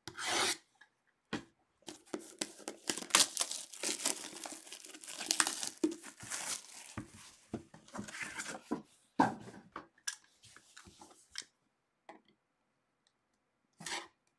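Plastic shrink wrap being torn and crinkled off a sealed trading-card box: a short rip at the start, then several seconds of dense crackling, thinning to scattered crinkles, with one more short rustle near the end.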